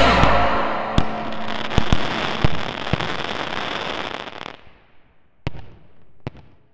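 Fireworks crackling, with several sharp pops over a dense crackle that fades out about four and a half seconds in, then two separate loud bangs near the end.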